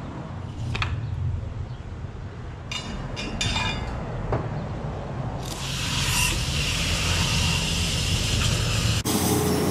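Self-serve car wash high-pressure wand spraying water into a plastic bucket, whipping soap into suds: a loud steady hiss that starts about halfway through and cuts off just before the end. Before it, a low rumble with a few clicks of the bucket and bottle being handled.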